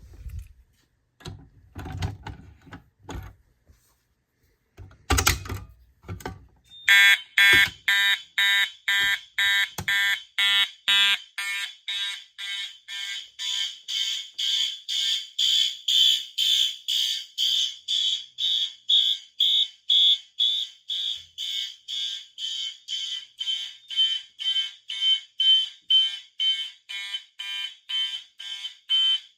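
A few knocks and clicks, then about seven seconds in fire alarm horn strobes start sounding in march-time code at 120 beats a minute: short electronic horn pulses about two a second, steady and loud.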